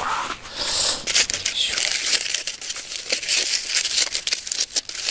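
Aluminium foil crinkling and tearing in a dense run of sharp crackles as gloved hands unwrap a foil-wrapped sweet potato baked in the campfire.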